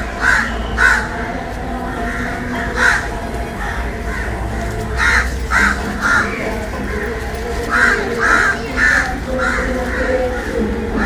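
Crows cawing: about ten short caws, singly and in quick runs of two to five, over a steady low hum.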